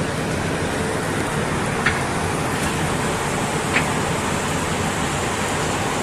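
Steady, loud rushing noise of a working manually stoked wood-fired steam boiler. Two sharp clacks of firewood sticks being handled come about two seconds in and again near four seconds.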